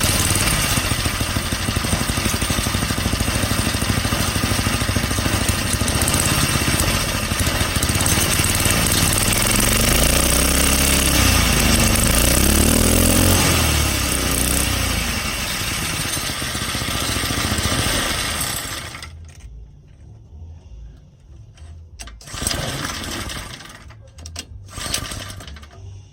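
Pocket bike's small engine running with its exhaust fitted. It revs up and down a few times about halfway through, then cuts out near the end, followed by a few brief sputters.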